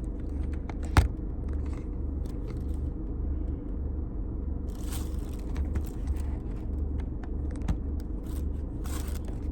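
Eating from a takeout plate: scattered clicks and brief scrapes and rustles, a sharp click about a second in and longer rustles near the middle and near the end, over a steady low rumble.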